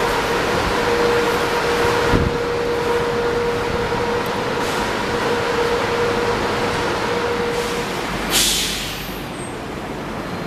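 Renfe AVE high-speed electric trains at a station platform: a steady mechanical hum with a held tone, and a single knock about two seconds in. Near the end the tone stops and a short, sharp hiss of released air follows.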